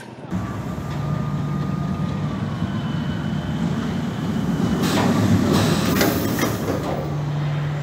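Roller coaster train running into a magnetic eddy-current brake run, its wheels clattering on the track under a steady low hum. The clatter grows louder about five seconds in as the train reaches the brakes.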